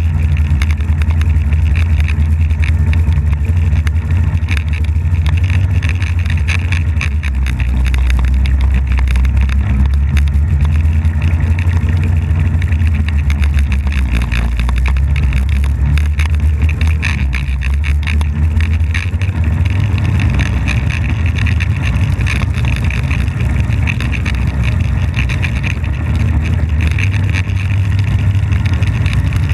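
Polaris snowmobile engine running steadily as the sled is ridden through snow. It eases off slightly a little past the middle and picks up again about two-thirds of the way through.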